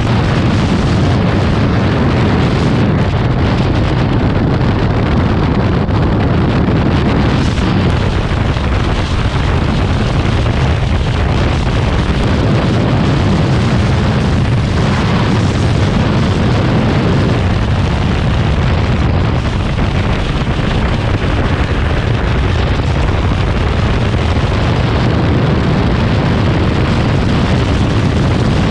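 Motorcycle at road speed: loud, steady wind rush buffeting the helmet-mounted camera microphone, with the bike's engine running underneath.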